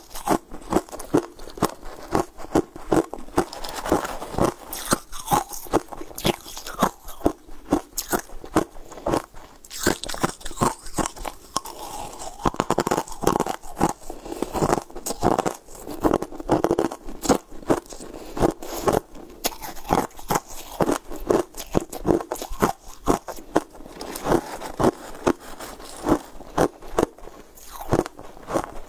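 Close-miked crunching and chewing of frozen blue sweet-ice chunks, a rapid, irregular run of sharp crunches with no let-up.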